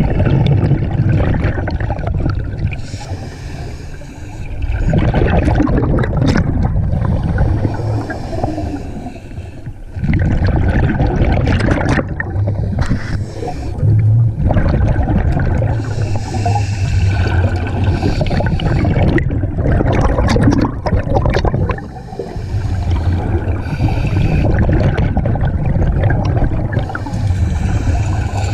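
Underwater scuba-diving sound: a diver's breath through the regulator and exhaled air bubbling up, in long bubbling stretches broken by a few brief lulls.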